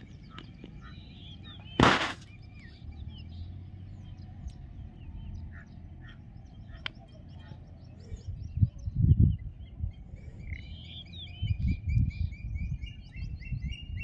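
Many small birds chirping and calling, with a run of quick repeated calls near the end. A sharp knock about two seconds in, and low rumbles around the middle and later.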